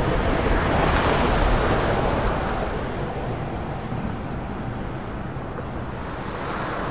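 Street traffic noise: a steady rush of passing cars that eases off over the first few seconds and swells slightly again near the end.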